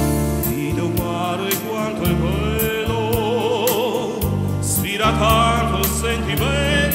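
Live music on a Yamaha Tyros 4 arranger keyboard: an accompaniment with a steady bass and beat under a melody line with strong vibrato that steps higher about five seconds in.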